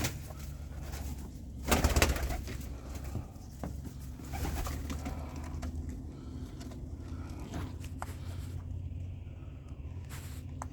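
Domestic pigeons cooing in a loft, low and repeated, with a brief loud rustle or knock about two seconds in.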